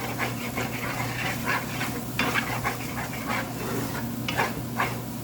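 A spatula stirring and scraping in a pan of frying egg with oil sizzling, in repeated strokes a few times a second.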